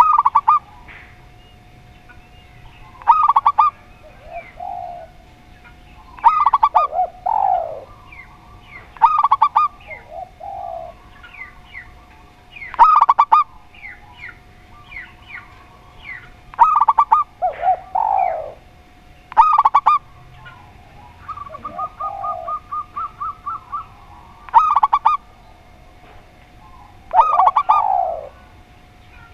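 Spotted dove and zebra dove cooing: short, loud call phrases repeat about every three seconds, some followed by a lower, falling coo. About three quarters of the way through comes a quick run of around a dozen short, even notes. Faint high chirps sit between the calls.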